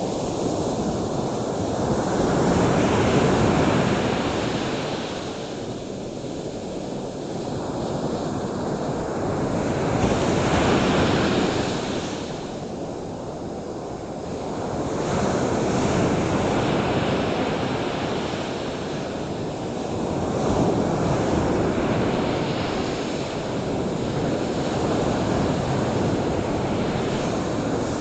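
Ocean surf washing onto a shore, a steady rush of breaking waves that swells and fades about every five to seven seconds.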